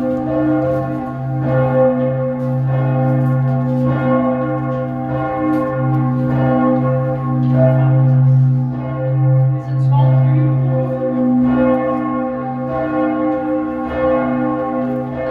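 Church bells of Giotto's bell tower in Florence ringing, several bells struck over and over about once a second, so their tones overlap into one continuous loud peal.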